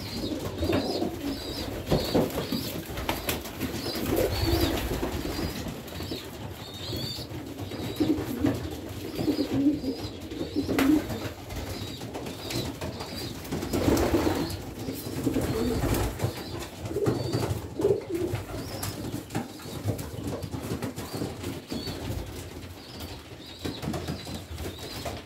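Domestic pigeons cooing over and over, low coos coming every second or so, with a few sharp knocks along the way.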